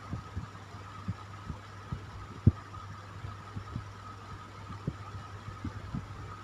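Electric fan running steadily: a low hum and a whirring tone over even airy noise, with irregular soft low thumps, one louder about two and a half seconds in.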